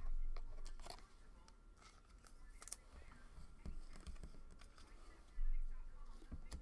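Trading cards and a torn pack wrapper handled by hand: rustling with sharp clicks and snaps as the cards are slid and flipped, and dull bumps at the start and about five seconds in.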